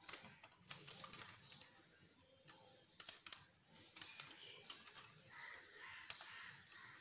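Faint, scattered clicks and taps from handling a plastic switch board: a wire being fed into a switch's brass terminal and the terminal screw worked with a tester screwdriver.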